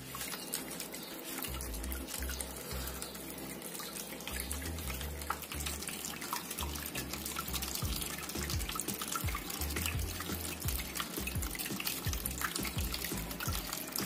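Small tabletop water fountain running: water trickling and spilling from tier to tier into its basins, with many small drips and splashes.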